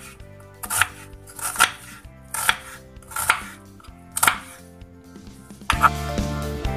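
Kitchen knife chopping green onions on a wooden cutting board: five sharp strokes a little under a second apart. Background music plays throughout and gets louder near the end.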